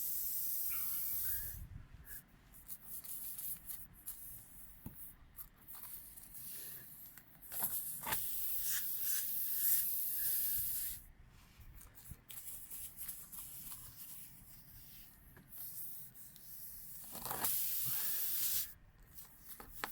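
Air hissing out through the puncture hole of a car tyre in several spells, as the plug kit's reaming tool is worked in the hole, with quieter scraping of the tool between.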